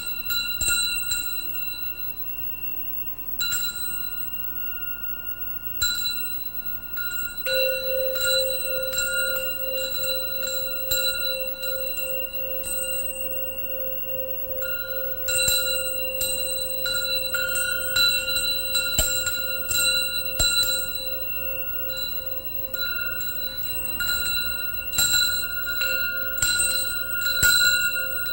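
Struck metal percussion ringing like bells: a series of strikes, each leaving long, clear high ringing tones, the strikes coming faster in the second half. From about a quarter of the way in, a lower pulsing metallic tone rings on under them until near the end.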